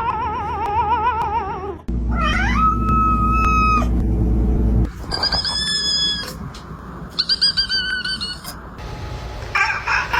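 A cat's pitched calls: a fast-warbling yowl, then a call that rises and holds steady over a low hum, then short high-pitched squeaky cries, each ending in an abrupt cut.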